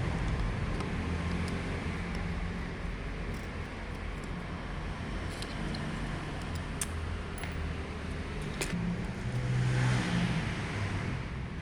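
A motor vehicle engine running steadily in the background, swelling briefly near the end, with a few sharp clicks over it.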